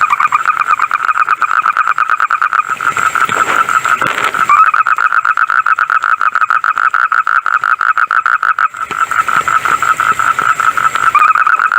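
Frog calling in a fast, steady-pitched pulsing trill that goes on with only two brief dips, each time resuming with a short upward slide.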